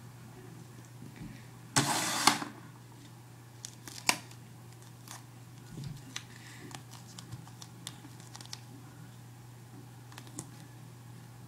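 Duct tape being handled: one harsh rip of tape, under a second long, about two seconds in, then scattered small clicks and crackles of the tape being worked, over a steady low hum.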